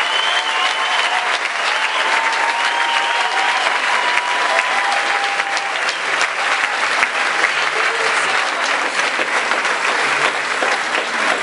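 A large audience applauding: dense, sustained clapping that holds steady throughout.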